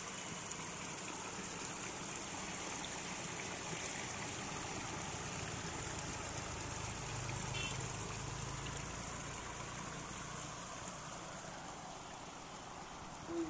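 Water running steadily over a bamboo slat screen and splashing into a mosquito net set as a fish trap: a continuous pouring, trickling rush.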